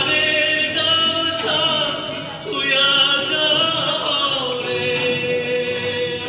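A Bengali song: a singer's voice holding long, drawn-out notes with musical accompaniment.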